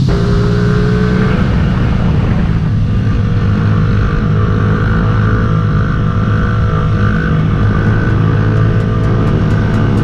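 Small mini bike engines running steadily.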